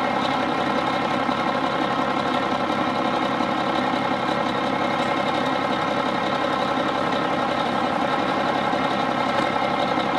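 Semi truck's diesel engine idling steadily, with a flame torch burning as it heats the frozen air brakes in deep cold.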